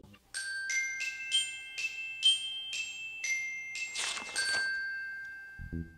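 Glockenspiel-like bell tones in a jingle: a quick run of about a dozen struck, ringing notes, a swish about four seconds in, then one last note left to ring out and fade.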